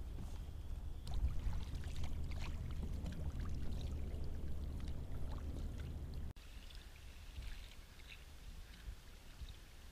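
Kayak paddle strokes splashing and water trickling off the blades, over a steady low rumble. About six seconds in, the sound cuts abruptly to quieter, sparser lapping and drips.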